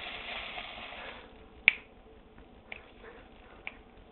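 Crinkling of shiny foil wrapping crumpled against the face, stopping about a second in, then four sharp clicks about a second apart, the first the loudest.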